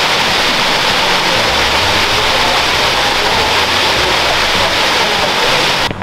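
Machine Falls, a waterfall, pouring in a loud, steady rush of falling water that cuts off suddenly near the end.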